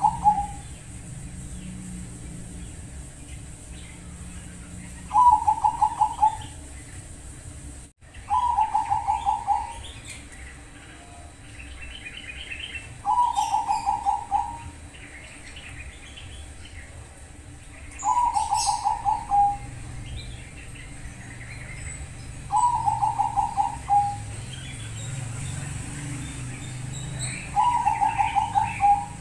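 Zebra dove (Bangkok-strain perkutut) singing its cooing song: a short, rapid run of staccato notes, repeated six times, about every four to five seconds. Faint chirping of small birds between the phrases.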